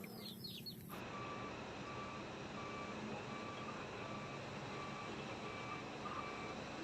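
Vehicle reversing alarm: a steady series of short, evenly spaced beeps starting about a second in.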